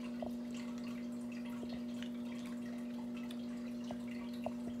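Steady low electrical hum in a small room, with a few faint clicks and three brief light pings.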